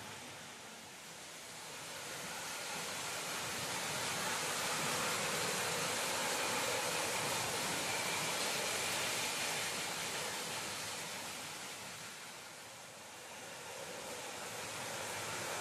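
Garden-scale model train running along its track, a steady rushing rumble of wheels and motor that swells as it passes close and fades again near the end.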